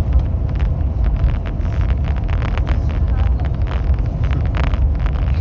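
High-speed passenger train running at speed: a steady low rumble with frequent small clicks and knocks over it.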